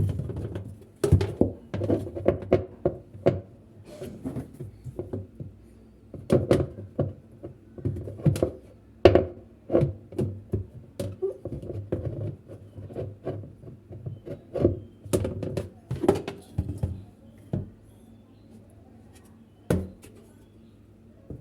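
Irregular knocks and clatters of washing-machine parts being handled as the filter under the pulsator is cleaned and fitted back, thinning out after about 17 seconds with one last knock near 20 seconds.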